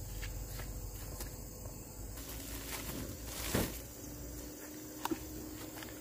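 Footsteps on a dirt path, faint ticks at an even pace over a low outdoor rumble, then a louder rustle about three and a half seconds in.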